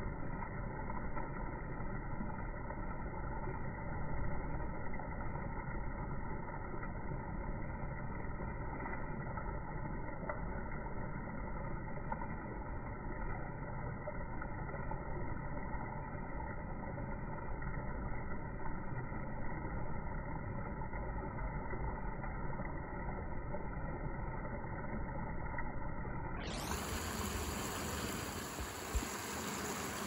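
Steady low rumbling background noise with no bird calls; near the end a brighter hiss joins for about four seconds.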